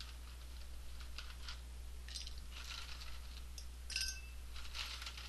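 Glassware being handled: light scrapes and taps, then a sharper glass clink that rings briefly about four seconds in.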